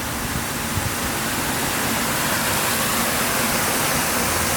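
Fountain water rushing and splashing steadily, an even hiss with no break.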